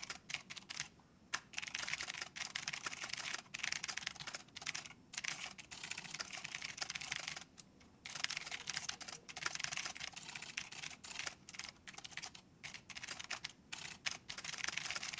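Typing on a computer keyboard: a fast, uneven run of key clicks with a few brief pauses, the longest just past halfway.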